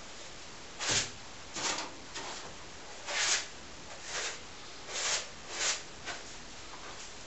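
Paintbrush stroking acrylic paint onto a large canvas: about eight short, irregularly spaced swishes.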